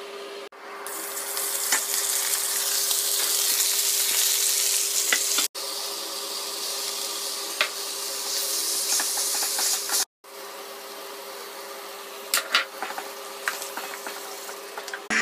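Spices and oil sizzling as they fry in a pan, a dense steady hiss with a low hum underneath and a few sharp clicks of stirring near the end. The sizzle drops out twice for a moment, about five and ten seconds in.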